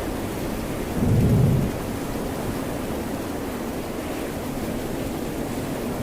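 Steady rain and ocean surf, with a short, deep rumble about a second in.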